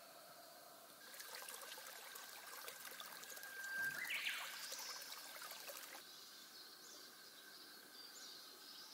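Small shallow stream trickling over gravel and stones, starting about a second in and falling away about six seconds in. A bird gives a rising call near the middle, and faint high chirps follow near the end.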